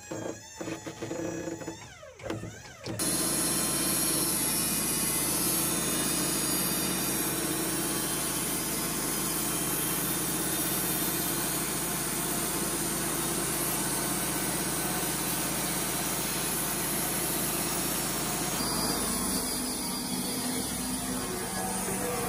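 Wood-Mizer LT35 portable bandsaw mill running, its Turbo 747 band blade sawing a slab off an American chestnut log. The steady, loud sawing noise over the engine starts suddenly about three seconds in, and the sound changes near the end.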